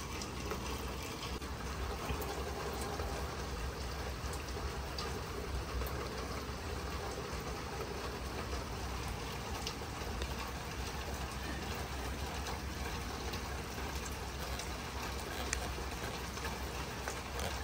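Steady rain falling, an even hiss, with a few louder single drips now and then.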